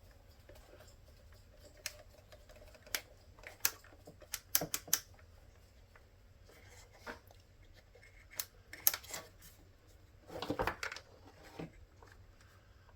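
Small plastic parts of a truck's overhead map light switch being handled and pressed together: scattered light clicks and taps, with a short scraping rustle a little after ten seconds in.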